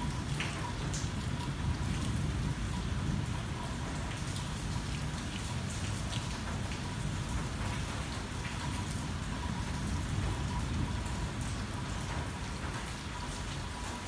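Rain falling on a car's roof and windshield, heard from inside the car: a steady wash with a low rumble and scattered ticks of individual drops.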